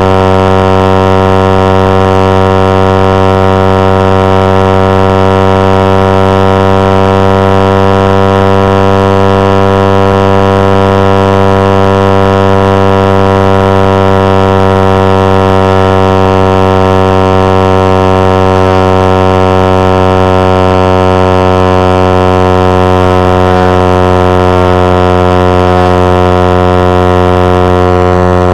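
Suzuki GSX-R150's single-cylinder engine running hard at high revs on a top-speed run, a steady drone whose pitch creeps slowly upward as the bike gains speed.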